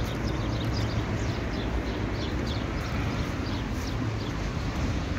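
Small birds chirping over a steady low rumble of outdoor background noise. The chirps are many short, high, downward-sliding notes that come several times a second.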